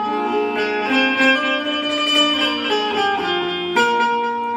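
Instrumental introduction of a Hindi devotional song played on keyboard instruments: a melody in a plucked, banjo-like tone moving note by note over held notes.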